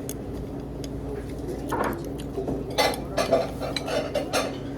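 Eating utensils clinking and scraping against a soup bowl, a quick cluster of knocks through the second half.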